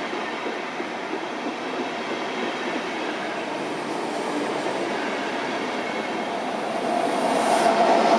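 Intercity coaches rolling past, wheels running on the rails, then a DB Class 101 electric locomotive coming by near the end. The sound grows louder there, and a steady whine appears.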